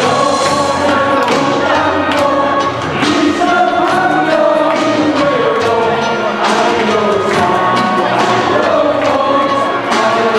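A group of men singing a Mandarin pop song together in chorus, some voices amplified through handheld microphones, over musical accompaniment with a regular beat and clapping along.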